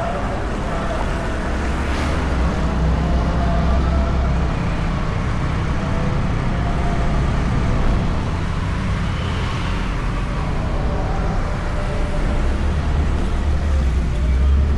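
Honda Beat scooter's single-cylinder engine running steadily while riding, with road and wind noise on the bike-mounted camera.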